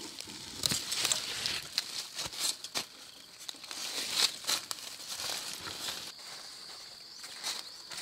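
Irregular rustling and crackling of leaves and vines being handled, with a steady high tone joining about six seconds in.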